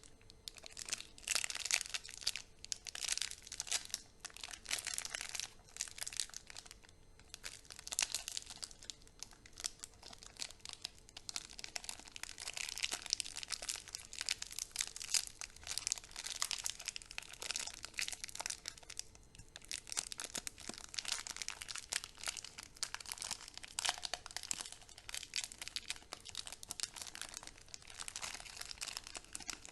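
Chocolate candy wrappers being crinkled and torn open by hand: dense, irregular crackling of the wrappers with brief pauses between handfuls.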